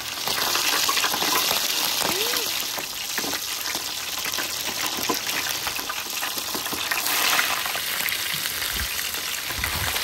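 Whole fish frying in a pan of hot oil, a steady dense sizzle that surges as a fish is lowered in at the start and again about seven seconds in.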